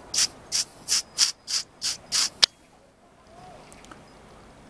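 A run of scratchy, rustling strokes, about three a second, that stops about two and a half seconds in with a single sharp click.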